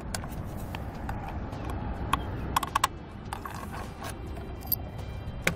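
Scattered light clicks and knocks from a Rhino-Rack ski and fishing rod carrier being worked by hand as its clamp is unlatched and opened, with a few quick clicks together around the middle. Under them runs a steady low rumble.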